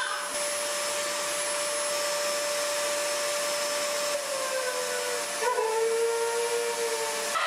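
Upright vacuum cleaner running with a steady whine and hiss. About four seconds in, a husky starts a long howl that slides down in pitch, then holds one note until near the end.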